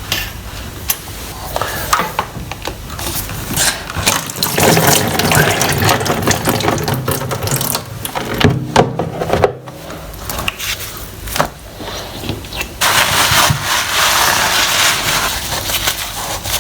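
Franke kitchen tap being dismantled by hand: clicks, knocks and scrapes of its metal parts being handled, with a steady hiss for a couple of seconds near the end.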